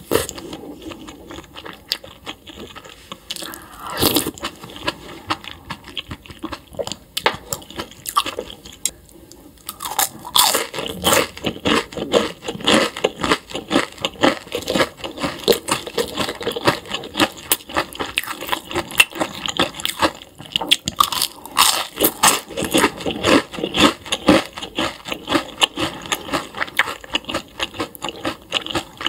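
Close-miked chewing of crunchy food: a dense run of crisp crunches and bites, sparse at first and then rapid and continuous from about a third of the way in.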